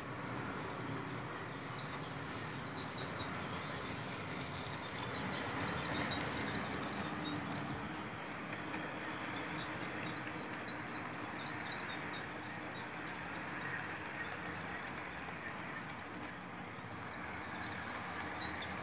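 HO scale model passenger train running on its layout: a steady whir and rumble from the locomotive's motor and the wheels rolling over the rails, with one short click near the end.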